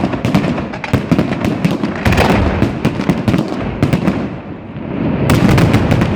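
Fireworks display going off: rapid, overlapping bangs and crackling over a continuous rumble, with a dense cluster of reports near the end.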